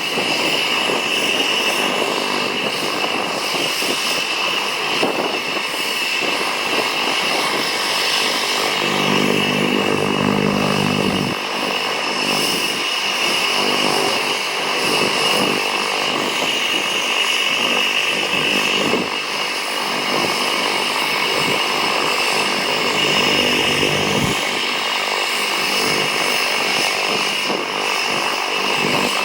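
Cessna 208 Caravan's single Pratt & Whitney PT6A turboprop engine running, a steady high turbine whine over propeller noise.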